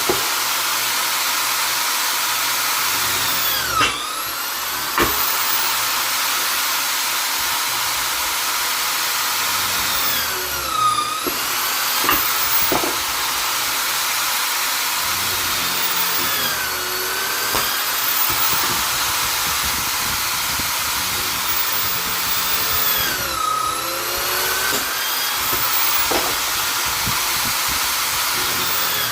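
Vonder electric drill/driver running continuously with a high, hissing whine. About four times the whine sags in pitch and climbs back as the motor slows under load and recovers, with a few short knocks among them.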